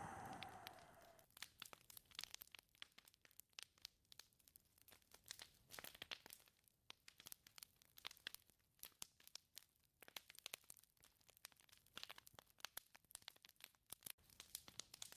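A gust of whistling wind dies away in the first second, and wind builds again at the very end. In between there is faint, irregular crackling: many small dry ticks at no steady rhythm.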